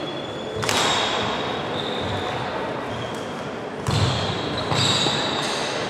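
Badminton sports hall ambience: high shoe squeaks on the wooden court floor and low thuds of footfalls and play, with two sharper knocks about half a second and four seconds in.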